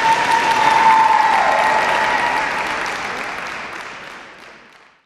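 Arena audience applauding, a dense wash of clapping with a single high held note over it that dips and stops about a second and a half in. The applause fades out gradually to silence near the end.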